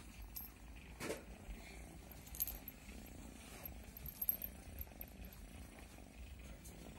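Black cat purring softly and steadily as it is stroked under the chin. The small metal bell on its collar jingles briefly about two and a half seconds in and again around four seconds in.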